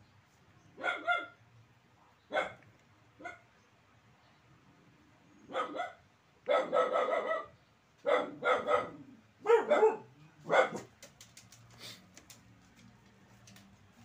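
A dog barking in a string of short barks with gaps between them, coming thicker and louder from about six seconds in, then stopping about eleven seconds in, leaving a few faint clicks.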